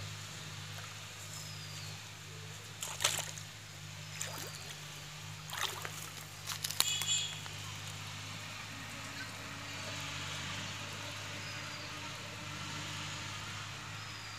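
Pond water splashing and sloshing as a person wades in and works their hands through it, with several sharp splashes between about three and seven seconds in, then gentler sloshing. A steady low hum runs underneath.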